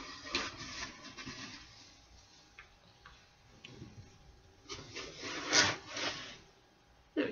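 Rustling and rubbing handling noise close to the microphone, with scattered faint clicks and a louder, rasping rub about five to six seconds in.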